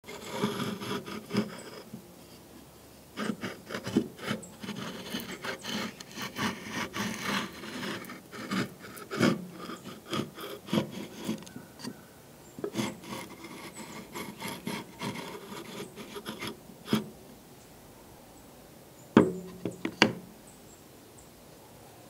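Hard pieces of a black Richlite phone stand clicking, rubbing and scraping against a wooden tabletop as they are handled and set down, in clusters of quick clacks, with two loud sharp knocks near the end.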